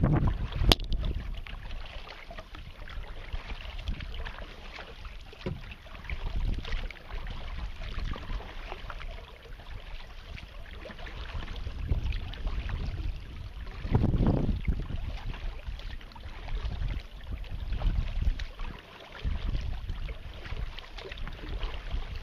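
Water lapping and splashing against a moving kayak's hull, with wind rumbling on the microphone. A sharp click comes under a second in, and the splashing swells briefly about two-thirds of the way through.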